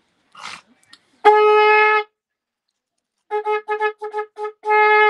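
A horn blowing one unchanging note: a single blast, then a quick run of six short toots, then a long held blast.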